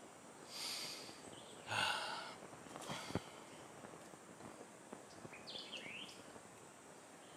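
Quiet outdoor ambience in woodland: two brief soft noises in the first two seconds, a sharp click about three seconds in, and a bird's few short chirps near six seconds.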